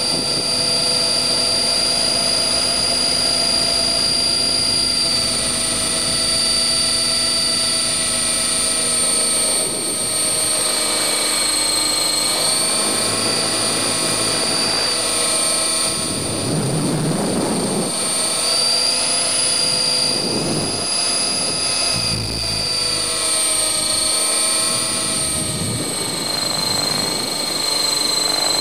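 Align T-Rex 600 ESP electric model helicopter heard from its own onboard camera mount: a steady high motor and gear whine over the rotor's running noise, its pitch shifting slightly as the load changes. Gusts of wind rumble on the microphone a few times in the second half.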